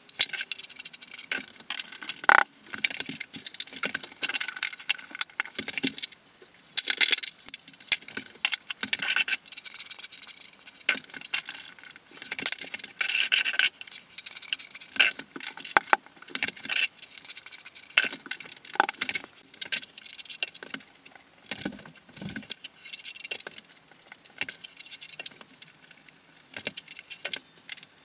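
Ceramic tiles being handled and set during tiling: a busy run of light clinks, scrapes and rattles, many quick ones close together.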